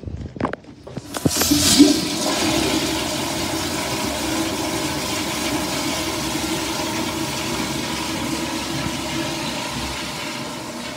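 Commercial flushometer toilet flushing. A couple of clicks come first, then a loud rush of water starts about a second in and settles into a steady pouring flow that eases slightly near the end.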